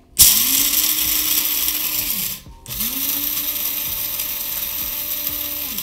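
Electric blade spice grinder grinding whole coffee beans in two runs. The motor spins up to a steady whir and runs about two seconds, then stops briefly, then runs about three seconds more, winding down near the end.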